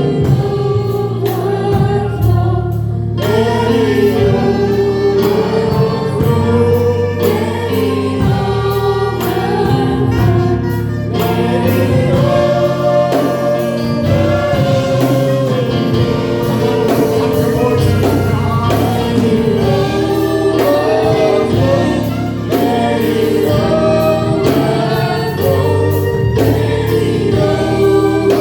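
Gospel worship music: voices singing together over a band, with a steady beat.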